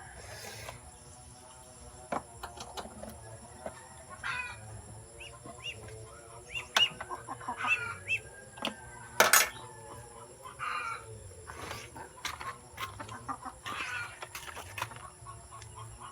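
Chickens clucking in short, scattered calls, with a few light clicks and one sharp knock about nine seconds in.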